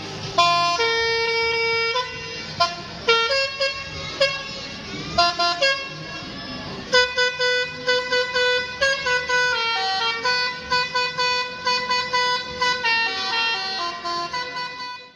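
Multi-tone 'telolet' air horn on a tourist boat playing a tune. One held note comes first, then a quick run of short toots at changing pitches, stopping just before the end.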